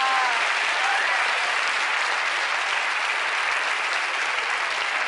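Studio audience applauding steadily, with a couple of brief whoops about a second in.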